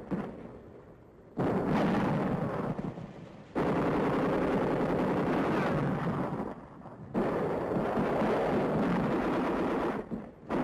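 Machine-gun fire in three long, dense bursts of two to three seconds each, separated by short pauses, beginning about a second and a half in.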